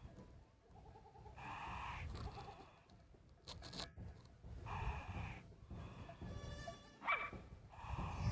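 Short, pitched animal cries, a few seconds apart, with a longer cry near the end that shifts in pitch.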